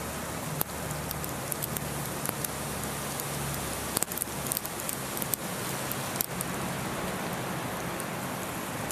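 Small hail falling: a steady patter with scattered sharp ticks of ice pellets striking a hard surface.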